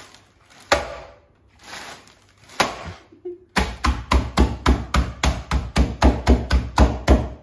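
Fists pounding Marie biscuits inside a plastic snap-lock bag on a stone benchtop to crush them into crumbs. Two single knocks come first, then about halfway in a fast, even run of thumps starts, about five a second.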